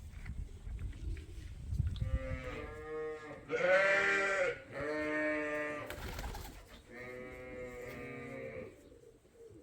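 Sheep bleating: four long bleats one after another, beginning about two seconds in, the second the loudest.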